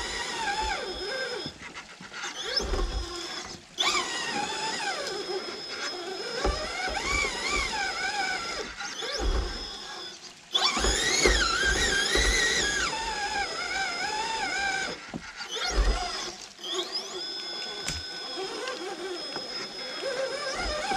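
Brushless electric motor and transmission of an RC rock crawler whining, the pitch rising and falling with the throttle and cutting out several times as it stops and starts on the climb, with low thumps of the truck on rock.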